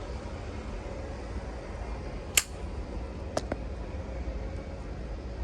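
Steady low room hum, with one sharp click about two seconds in and two lighter clicks close together about a second later.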